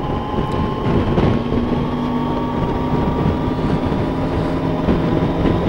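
Motorcycle engine running steadily while riding, with wind noise on the microphone. The engine note drops lower near the end.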